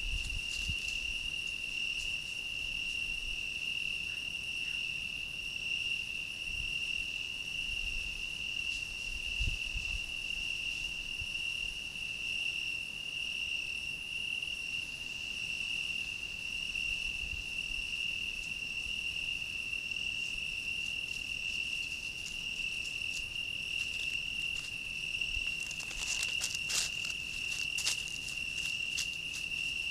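Night insects, crickets by their song, trilling in one steady, unbroken, high-pitched chorus. Near the end come a few short clicks and rustles as a fox moves over dry leaves close by.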